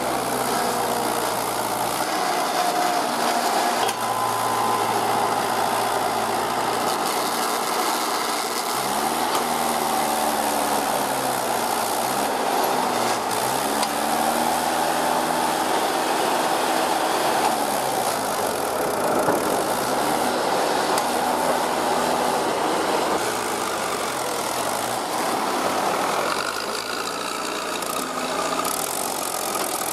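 Mahindra tractor's diesel engine labouring as it strains to pull a loaded trolley stuck in mud, its pitch rising and falling as it is revved up and eased off several times.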